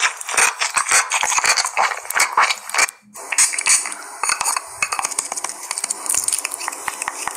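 Rapid clicks and taps of typing on a phone's on-screen keyboard, a dense run of keystrokes with a brief pause about three seconds in.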